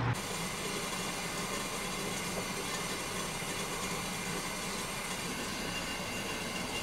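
Steady hiss of a gas stove burner heating a stainless-steel kettle.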